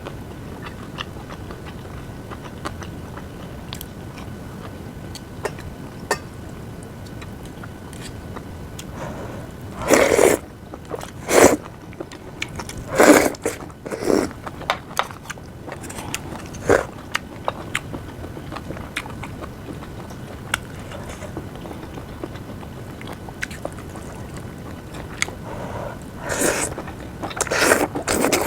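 Close-miked eating: chewing and mouth sounds with frequent small clicks. Louder bursts come in a cluster about a third of the way in and again near the end.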